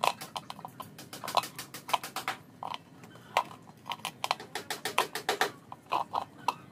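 Hands handling and seating a replacement voice coil in a large speaker's magnet gap: a run of irregular light clicks and taps from the coil former and speaker parts being pressed and shifted.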